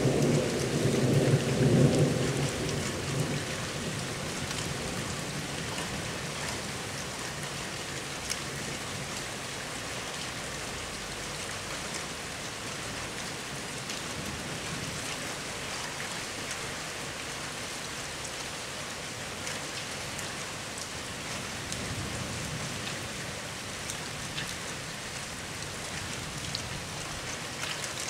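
Thunderstorm along a squall line: steady downpour of rain, with a low rumble of thunder fading over the first three seconds or so and a weaker rumble about twenty-two seconds in.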